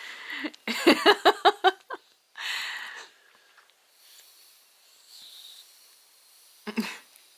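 A quick run of short vocal sounds about a second in, followed by a breathy hiss, with another brief vocal sound near the end.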